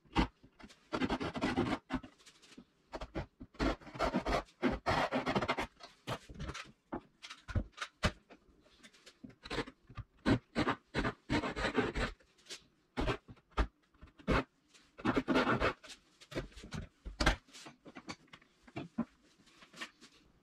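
Japanese pull saw cutting into a wooden rail, in runs of quick sawing strokes with short pauses between, and a few sharp clicks.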